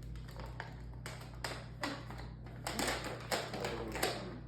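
About half a dozen irregular sharp clicks and taps, with a steady low hum underneath.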